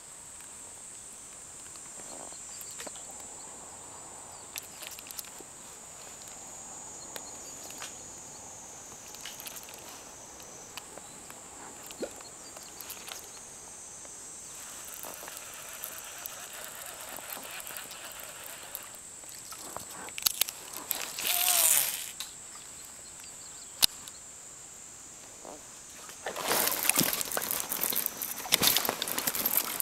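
Insects droning steadily at a high pitch from the wooded shore, with scattered small clicks. A louder rushing noise comes in briefly about two-thirds of the way through and again near the end.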